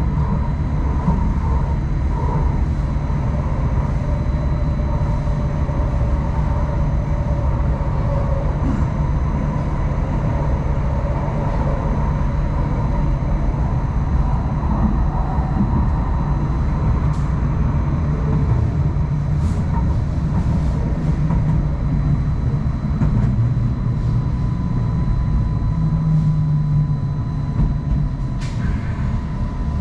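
Hong Kong Light Rail Phase I light rail vehicle in motion: steady low running rumble with a constant whine, and a few sharp clicks in the second half.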